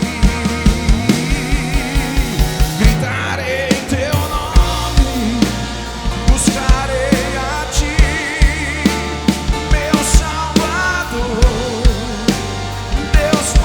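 Live rock-style worship band playing an instrumental passage: drum kit keeping a steady beat under bass, guitars and keyboards, with a wavering melodic lead line on top. The drums drop back briefly about three seconds in, then return.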